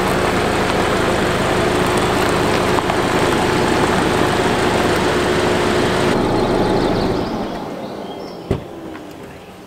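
Steady road and engine noise inside the cabin of a moving 2022 Subaru Crosstrek, with a constant low hum under it. About six to seven seconds in it fades out to a much quieter background, broken by a single sharp knock.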